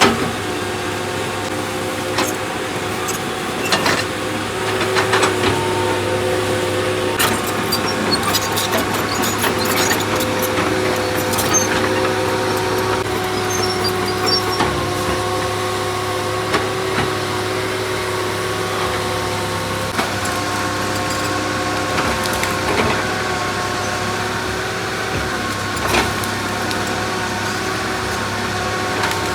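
Excavator diesel engine running under varying load, its pitch shifting a few times, with scattered knocks and clatter from the machine working.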